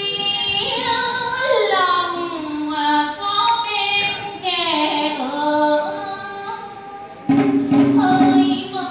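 A woman singing solo in Trò Kiều folk-theatre style, with long held notes that slide and waver in pitch, amplified through a stage loudspeaker. Near the end a louder, lower-pitched sound comes in along with a few knocks.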